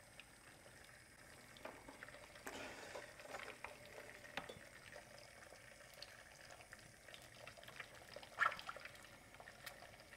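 Egg frying gently in plenty of oil in a small pan, over heat kept low so it does not brown: a faint, soft sizzle with scattered small crackles, and one brief louder tap near the end.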